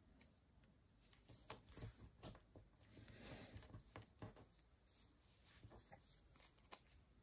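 Faint handling of die-cut card pieces on a sheet of paper: scattered light taps and clicks, with a soft rustle a little over three seconds in as a piece is laid down and pressed flat.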